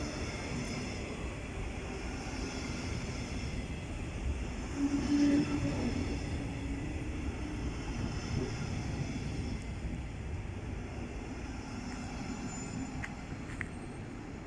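A train moving through the station: a steady low rumble, with a brief hum and a rise in loudness about five seconds in.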